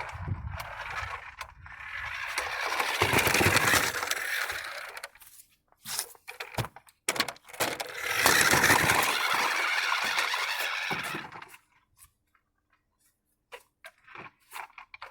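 A large remote-control car driving in two bursts of a few seconds each, its motor and wheels making a rattly running noise. Between the bursts and near the end there are short clicks and knocks.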